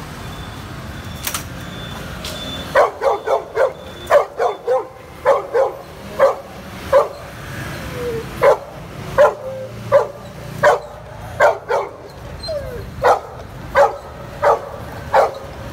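Golden retriever barking repeatedly at another dog, in quick runs of short, sharp barks at about one to two a second, beginning about three seconds in.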